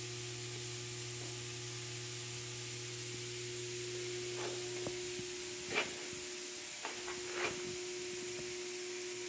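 Steady hum and hiss of an idling CNC mill-turn machine, with a lower hum dropping out about halfway. A few short squeaks and scrapes come midway as the bronze gear is handled in the chuck.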